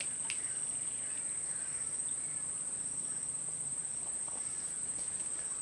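Insects droning steadily in one continuous high-pitched buzz.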